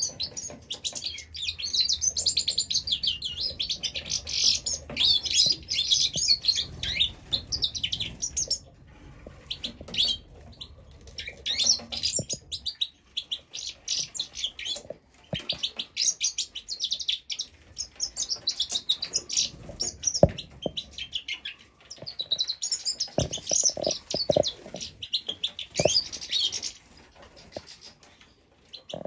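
Young birds chirping, high and fast, in dense bursts with short pauses between them. A few soft knocks sound in the second half.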